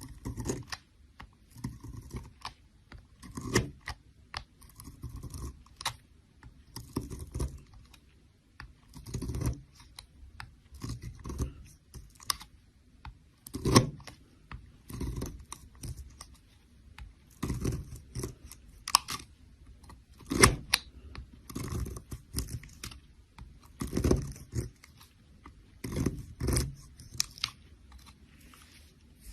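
A knife cutting into a bar of soap, in short, irregular crunchy strokes and scrapes, with a few louder cuts.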